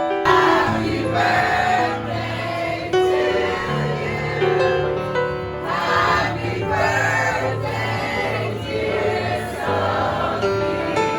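Background music: several voices singing together in a choir over a held low bass note.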